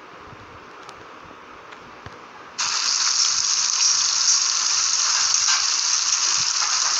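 Food sizzling in a frying pan from a cooking clip, cutting in suddenly about two and a half seconds in as the clip starts playing and holding a steady, loud hiss; before that only faint clicks.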